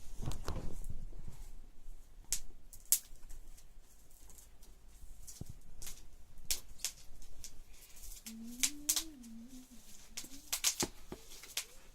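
Scattered sharp clicks and rustles of a tablet and its packaging being handled, with a louder rustle at the start. About eight seconds in, a short low wavering hum of a voice.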